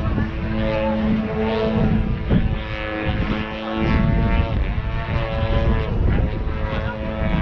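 Engine and propeller of a radio-controlled aerobatic model plane, an Extra, running through a 3D display, with its pitch dipping and rising again as the throttle changes, over low wind rumble.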